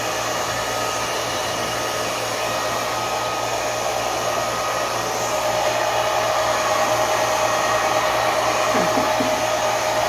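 Handheld hair dryer without a diffuser blowing steadily: a rush of air with a steady whine, getting a little louder about halfway through.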